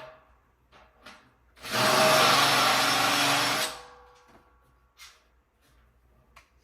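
A power drill/driver runs for about two seconds, driving a screw into the metal bed frame, then stops sharply. Light metal clicks and knocks from the frame parts come before and after it.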